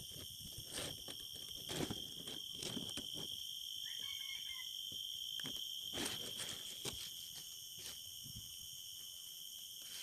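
Steady high-pitched drone of forest insects such as crickets or cicadas, with scattered rustling clicks and a brief chirp about four seconds in.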